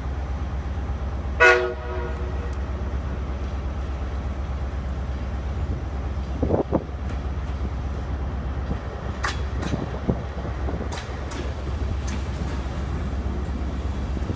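A train horn blasts once, briefly, about a second and a half in, as an InterCity 225 set led by its Driving Van Trailer runs into the station. The train then rolls slowly into the platform over a steady low rumble, with a short squeal near the middle and scattered sharp clicks from the wheels after it.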